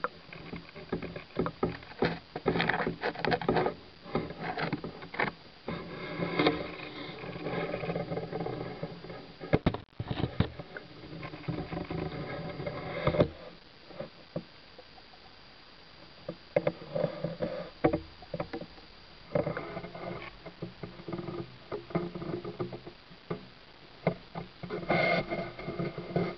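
Water splashing and sloshing around a camera held at or under the surface, with irregular knocks and a muffled pitched hum that comes and goes.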